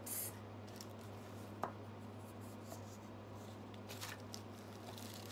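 Faint handling sounds as small items are moved about: one soft click about one and a half seconds in and a few light rustles near the end, over a steady low hum.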